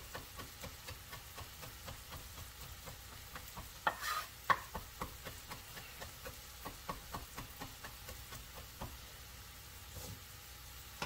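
Chef's knife knocking on a wooden cutting board as thyme leaves are roughly chopped: irregular light knocks, with a louder cluster about four seconds in.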